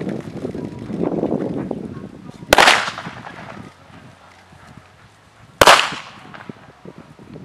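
Two loud, sharp cracks about three seconds apart, each ringing briefly, as the dog grips the decoy. Before the first crack there is a stretch of rough, lower scuffling noise.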